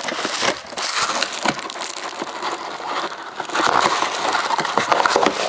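Tissue paper and plastic packing crinkling and rustling as hands dig through a cardboard shipping box, louder a little past halfway.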